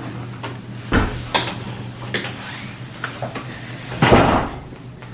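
Several knocks and clunks, the loudest about four seconds in, over a steady low hum.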